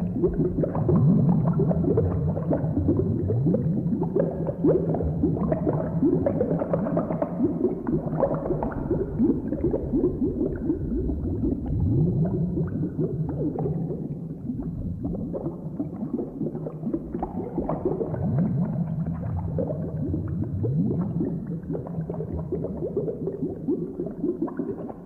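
Boiling cauldron sound effect: thick liquid bubbling steadily, with a constant run of low bubbles popping. It eases off slightly about halfway through.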